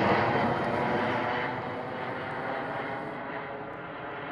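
Steady engine drone with a faint even hum, loudest at the start and easing slightly.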